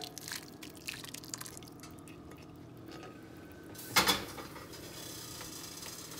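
Last drips of the hot orange-honey sauce falling into the pan of chicken, then a short clank of a pot or pan about four seconds in, followed by the sauce faintly bubbling and crackling in the pan.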